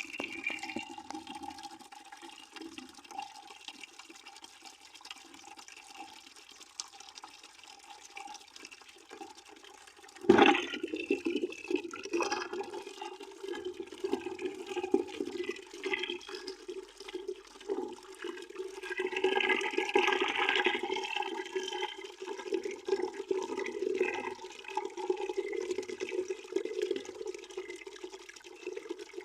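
Water running steadily into a bucket, a continuous splashing gurgle. About ten seconds in comes a sudden sharp sound, and the flow is louder after it, with a brighter stretch about twenty seconds in.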